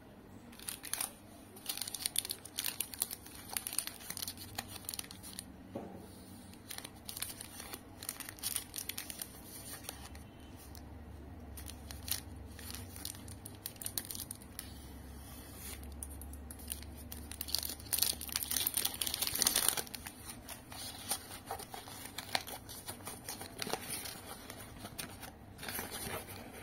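Nestlé KitKat wrapper being torn open and crinkled by hand, with sharp crackles throughout and a dense run of crinkling about two-thirds through as the bar is unwrapped.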